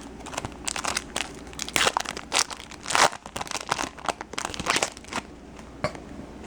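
A foil trading-card pack wrapper being torn open and crinkled by hand, a quick run of sharp crackles that stops about five seconds in.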